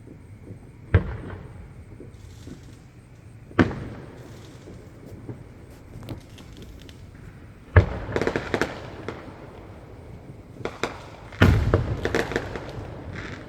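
Aerial fireworks bursting: four sharp booms spaced a few seconds apart, the last two each followed by about a second of crackling.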